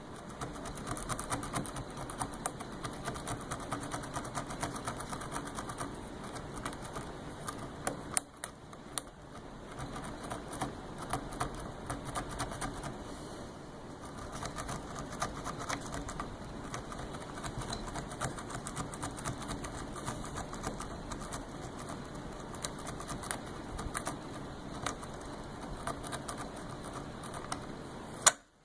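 Notched plastic zip tie raking the pin stack of a Master padlock: rapid, continuous small clicks and scratching, with a few louder clicks, one about eight seconds in and one near the end.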